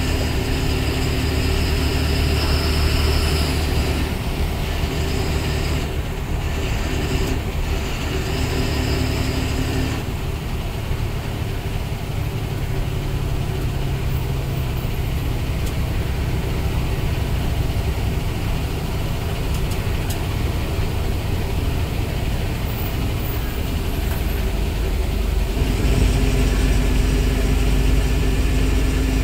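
Ashok Leyland 180 hp bus engine running while the bus drives, heard from inside the cabin. The engine note shifts about ten seconds in and grows louder, with a deeper rumble, near the end.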